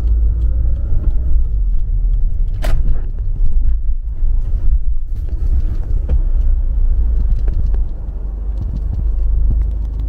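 Car cabin noise while driving: a steady low rumble of engine and road, with a few sharp clicks, the clearest a little under three seconds in. The rumble eases slightly about eight seconds in.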